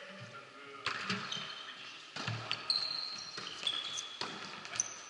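A volleyball striking the floor and hands about four times, roughly once a second, each knock echoing in a large sports hall. Short high sneaker squeaks on the court floor come between the knocks.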